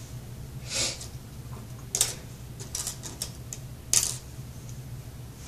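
Hands working in hair with a soft rustle about a second in, then a few light sharp clicks, the last the loudest, as bobby pins are handled and pushed in to fix stray hairs.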